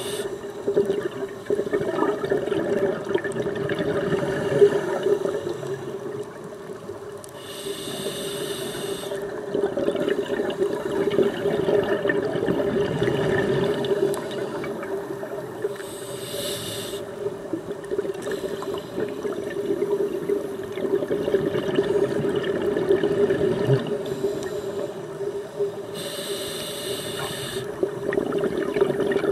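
Scuba breathing through a regulator, heard underwater: slow breaths, with a short hissing inhale three times, roughly every eight to ten seconds, and bubbling exhales between them.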